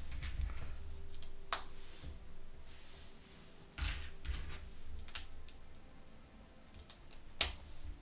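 Plastic Lego pieces clicking and tapping as they are picked up, handled and set on a tabletop: a few scattered sharp clicks, the loudest two close together near the end.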